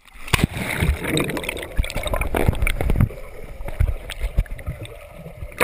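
Swimming-pool water sloshing and gurgling around a camera held at or below the surface, with irregular knocks and thumps from the camera moving through the water.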